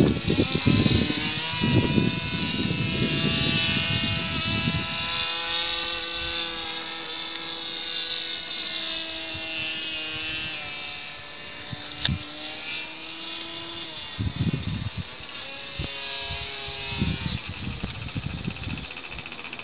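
Motor of a small model airplane droning in flight overhead, its pitch sliding up and down as it flies around. Wind buffets the microphone in gusts in the first few seconds and again near the end.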